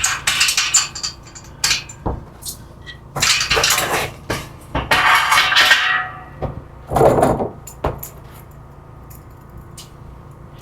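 Metal scaffold parts clinking and scraping in several bursts as caster wheels and their pins are fitted into a Baker scaffold frame, then only light ticks after about eight seconds.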